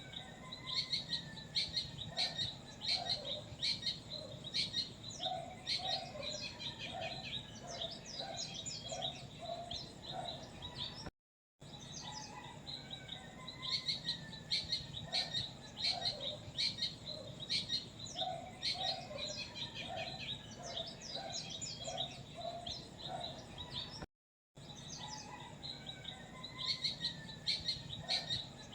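A chorus of small songbirds chirping and twittering, with a lower-pitched bird repeating short calls in runs. The sound cuts out briefly twice, about 11 and 24 seconds in, and the same stretch of birdsong starts over after each cut, as a looped recording.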